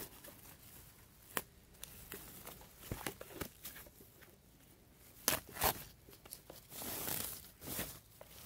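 Thin plastic packaging bag crinkling as a photo card binder is slid out of it: a few separate sharp crackles, then a longer rustle near the end.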